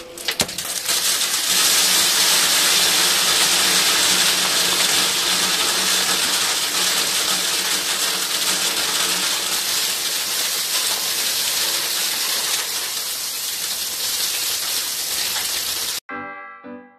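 A steady, loud rushing hiss like heavy rain: a mass of small loose pieces pours out of a large metal horn on a pole and showers down. It cuts off abruptly near the end.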